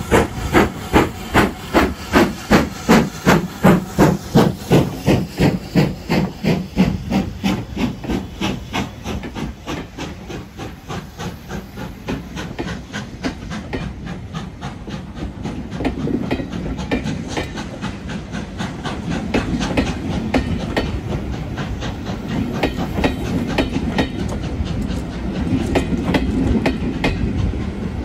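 BR Standard Class 5 steam locomotive 73156 passing under steam with a steady, rapid chuff of exhaust beats. The beats fade after about ten seconds as its coaches roll by, wheels rumbling and clicking over the rail joints.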